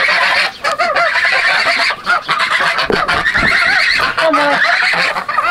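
A flock of geese honking continuously, with many calls overlapping.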